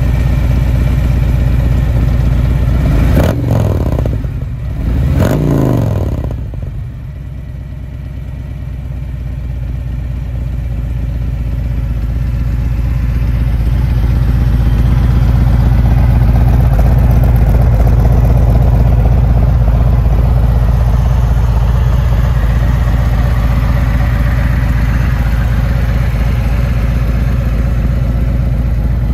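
2020 Harley-Davidson Road Glide's Milwaukee-Eight V-twin, running through a Khrome Werks 2-into-1 exhaust with three-step headers. It is blipped twice, about three and five seconds in, the pitch rising and falling each time, then settles into a steady, deep idle.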